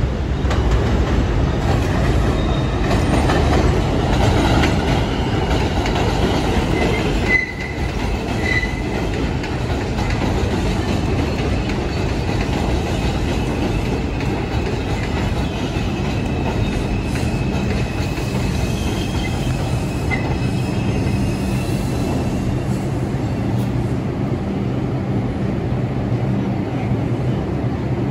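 R142 subway train running along the track: steady wheel and rail noise with clatter and faint wheel squeal. A sudden brief drop comes about seven seconds in, after which the sound settles into a steadier low hum.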